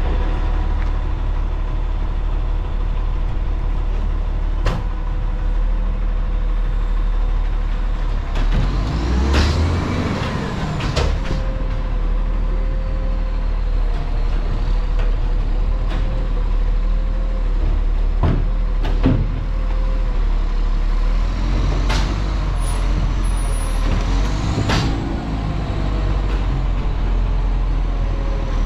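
Garbage truck engine running steadily, with several sharp knocks and clanks over it and a steady tone setting in partway through.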